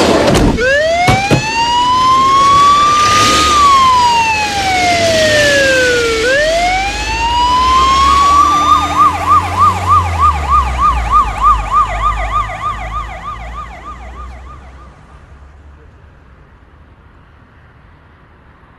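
Police car siren starting up: one slow wail rising and falling, a second rise, then a fast yelp of about two to three cycles a second that fades out. Two sharp knocks just as it starts.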